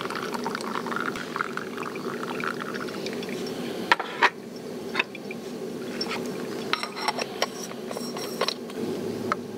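Liquid being poured, with a few sharp knocks about four and five seconds in and some light clinks near the end.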